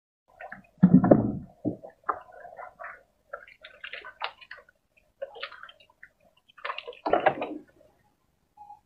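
Water splashing and sloshing in short irregular bursts, with two heavier splashes about a second in and about seven seconds in.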